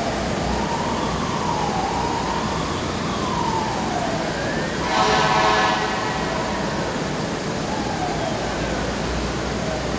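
A distant siren wailing, its pitch slowly rising and falling, over a steady background rush. About five seconds in, a brief louder horn-like blast sounds for under a second.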